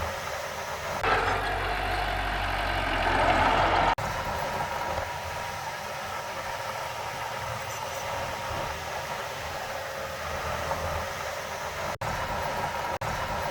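Heavy diesel earthmoving machinery running. About a second in it grows louder and fuller for some three seconds, then drops suddenly back to a steady run.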